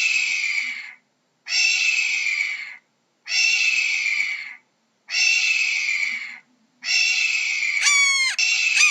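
Hawk screaming: a series of about six harsh, slightly downward-slurred screams, each a little over a second long with short pauses between. Near the end two sharper, clearer calls sweep steeply down in pitch over the screams.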